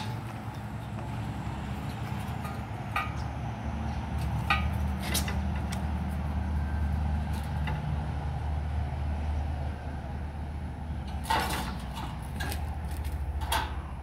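Scattered knocks and clatters as a Siberian husky and another dog nose among loose bamboo poles and plastic crates, louder about eleven seconds in and again near the end, over a steady low rumble.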